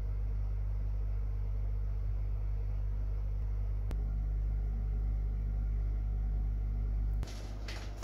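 Steady low mains hum from the record-playing hi-fi system, with a single click about four seconds in. Near the end the hum drops off and crackles from the spinning vinyl record take over, just before the music starts.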